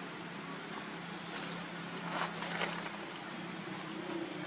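Forest ambience: a steady high insect drone over a low steady hum, with a few brief rustles about two seconds in.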